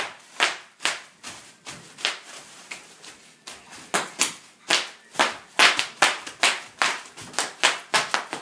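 Bubble wrap being stomped on underfoot, its bubbles bursting in a fast, irregular run of sharp pops.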